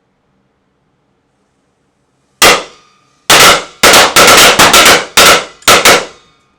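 Firecrackers going off: one loud bang about two and a half seconds in, then a rapid crackle of about ten more sharp bangs, each ringing briefly.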